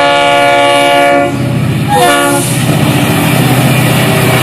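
A Florida East Coast diesel locomotive's multi-chime air horn: a long blast ends about a second in and a short blast follows about two seconds in, part of the long-long-short-long grade-crossing signal. After the short blast the locomotive's engine rumbles and the wheels clatter as it passes close by.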